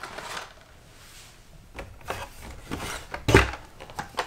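Hot Wheels die-cast cars in their card-and-plastic blister packs being handled and taken out of the cardboard case: light rubbing and a few knocks, the loudest a dull thump a little over three seconds in.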